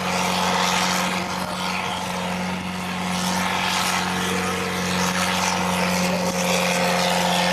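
Ford 5000 tractor's engine running at steady high revs under full load as it pulls the sled, a constant loud drone.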